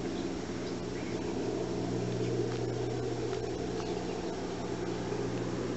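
A steady low mechanical hum with a faint hiss, level throughout without rising or falling.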